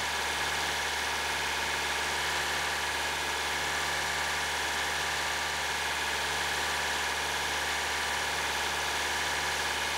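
Mazda Roadster NB6C's 1.6-litre four-cylinder engine idling steadily while air is bled from its cooling system through a coolant funnel on the radiator filler.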